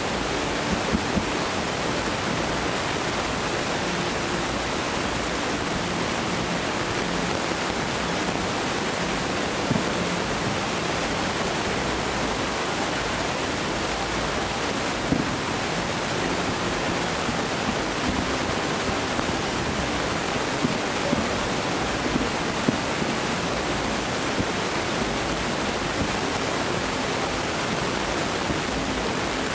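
Steady, even rushing noise, with a few faint, short distant fireworks bangs scattered through it.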